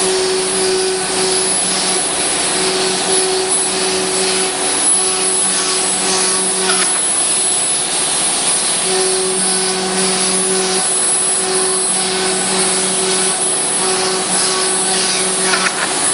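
CNC router spindle and bit cutting a door-panel pattern into a wooden board: a loud, steady high cutting noise, with a lower machine hum that keeps cutting in and out as the head moves.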